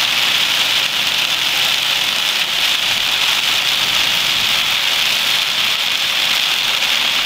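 Heavy downpour falling on a car's roof and windshield, heard from inside the car as a steady, loud hiss.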